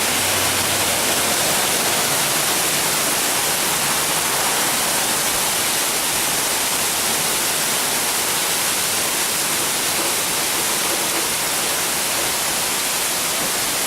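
Heavy rain pouring steadily: a dense, even hiss with no breaks.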